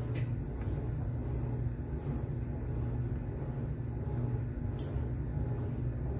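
Washing machine running with a steady low rumble and hum. A lighter is struck about five seconds in, a single sharp click.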